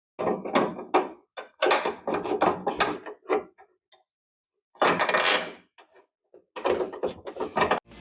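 Bolts and hand tools being handled against steel while engine mount bolts are fitted: quick metallic clicks, clinks and scrapes in three bursts, with silent gaps between.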